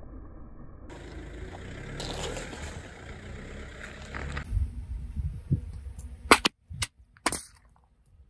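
Car tyre rolling over and crushing a watermelon: a steady low rumble, then several low thumps and three sharp cracks near the end, each cut off abruptly.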